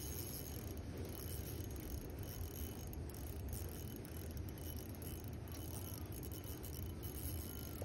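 Spinning reel being cranked steadily while retrieving a lure, a light mechanical rattle over a low rumble of wind or handling on the microphone.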